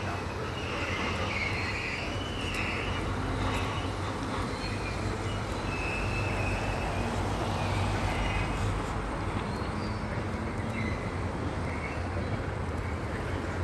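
Freight train rolling past, a steady low rumble with faint higher-pitched sounds coming and going.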